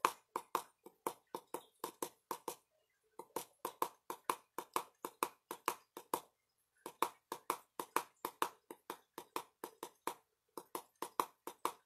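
Light taps, evenly spaced at about four a second, in runs broken by short pauses.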